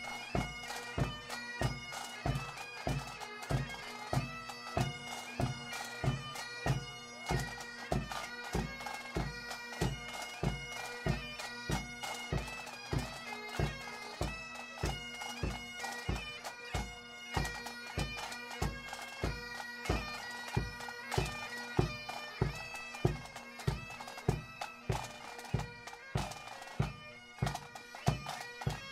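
Pipe band playing: bagpipes with a steady drone under the melody, and a drum beating about twice a second.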